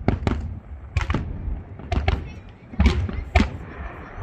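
Fireworks going off: a quick irregular series of sharp bangs, about six in four seconds, each with a deep boom under it.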